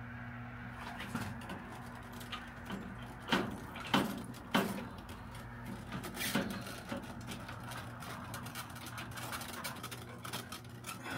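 Plastic water tubing being worked onto the 3D-printed barbed connectors at the ends of PVC downspout hydroponic troughs. There are several short knocks and clicks of plastic on plastic, bunched near the middle, over a low steady hum.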